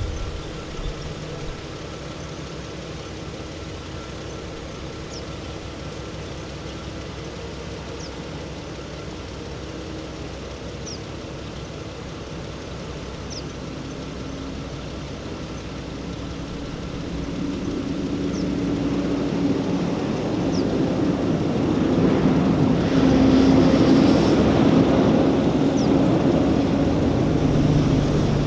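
Truck engines running steadily during the recovery of a pickup stuck in soft sand. The engine sound grows louder about two-thirds of the way through.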